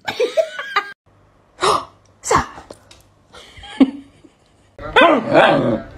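Brief laughter, then a dog's short sneeze-like puffs of breath, twice, followed by a small snort. About a second before the end a loud pitched voice starts.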